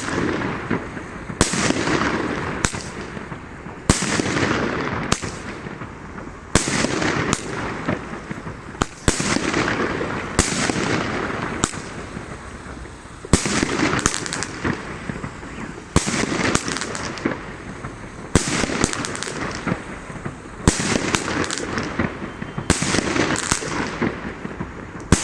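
Consumer fireworks battery (cake) firing shot after shot, about one a second with a brief pause around the middle, each a sharp bang followed by a fading tail.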